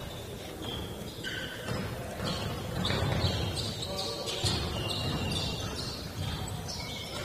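Basketball game court sounds: repeated short, high sneaker squeaks on the hardwood floor, with a basketball bouncing as it is dribbled.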